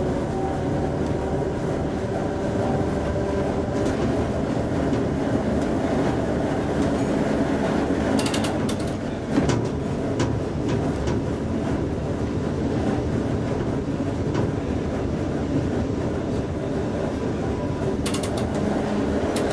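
Vintage SS A1 electric tram (built by ASEA in 1904, rebuilt 1926) running along its street track, heard from the driver's open front platform: a steady running hum over the rumble and rattle of wheels on rails. Short sets of sharp clicks come about eight seconds in and again near the end, with a brief jolt just after nine seconds.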